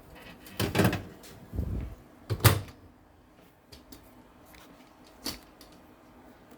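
A dish knocking as it is set into a microwave oven, then the microwave door shut with a sharp clunk about two and a half seconds in. A single click follows a few seconds later.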